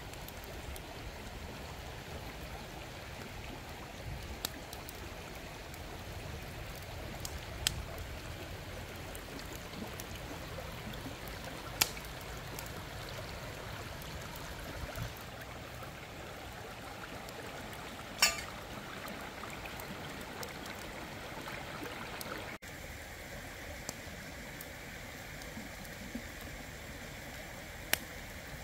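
Shallow river running over stones, a steady rush of water, broken by a few short sharp snaps.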